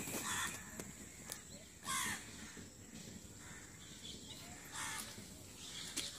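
A crow cawing three times, a couple of seconds apart.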